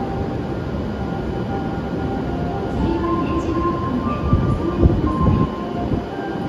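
Steady running hum of a stationary E7-series Shinkansen train at the platform with its doors open, over station ambience, with a few faint held tones. A couple of short low bumps come about five seconds in.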